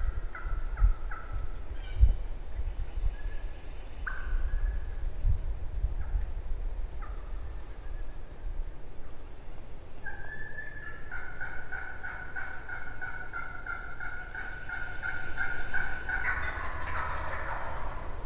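Wild turkeys calling: short yelping notes, then a long run of evenly repeated yelps at a steady pitch, and a gobble near the end. A low rumble runs underneath, with a single low thump about two seconds in.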